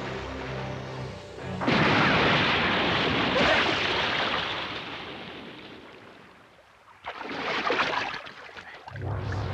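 A sudden loud rush of noise as the sea surface erupts in a big splash, fading away over several seconds, then a second, shorter rush near the end. Music plays at the start and comes back at the end.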